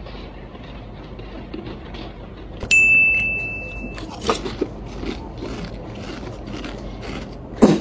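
A single bell-like ding about two and a half seconds in, fading over a second and then cutting off. After it come soft crunchy chewing sounds, about two a second, and a sharp knock near the end.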